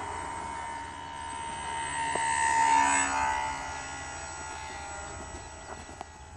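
RC model airplane's motor and propeller whining as it flies past overhead, growing louder to a peak about three seconds in, then fading as it moves away.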